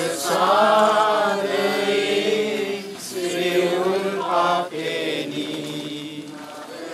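People in a church procession chanting a hymn together in slow, held notes.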